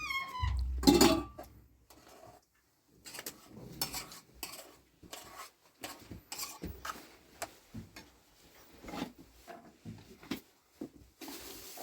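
Pots, dishes and metal utensils being handled, with irregular clinks and knocks and a heavier thump about a second in.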